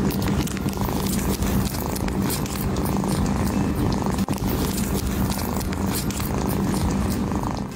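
Cat purring steadily, close up, a continuous low rumble while a kitten nurses on its mother.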